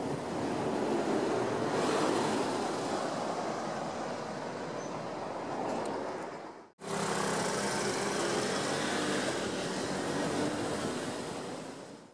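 Steady noisy background ambience in two stretches, the second with a faint low hum underneath. Each stretch cuts off abruptly, one about seven seconds in and one near the end.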